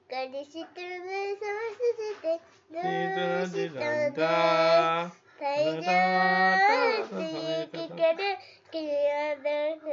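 A young girl singing a song, mostly short sung phrases with two long held notes in the middle.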